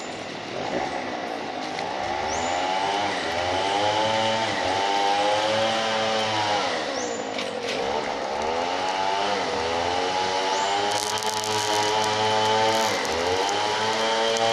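Small petrol engine running hard, its pitch dipping and climbing back several times.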